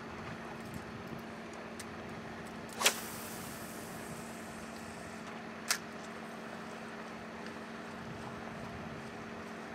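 A cast with a spinning rod: a sharp swish about three seconds in, then line hissing faintly off the spinning reel for a couple of seconds, and a short sharp click near six seconds as the reel's bail closes. A steady low hum from the boat's motor runs underneath.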